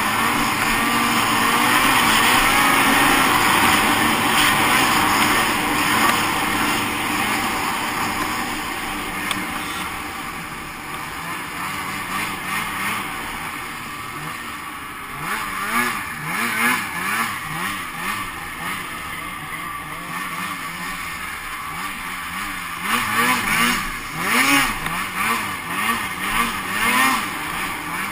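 Two-stroke snowmobile engines running at speed. From about halfway the engine pitch rises and falls again and again as the throttle is worked on and off.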